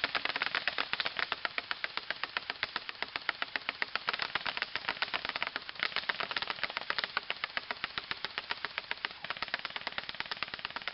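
Two airsoft rifles, a JG G36C and a DPMS Panther A17, firing on full auto together: a rapid, even rattle of shots that keeps going without a break.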